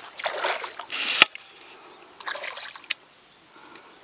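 Hooked largemouth bass thrashing at the water's surface, splashing in two bursts, with one sharp click about a second in.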